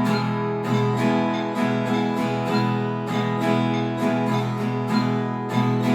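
Nylon-string concert guitar strummed on one chord in even beats at about 100 beats a minute, the chord ringing on between strokes.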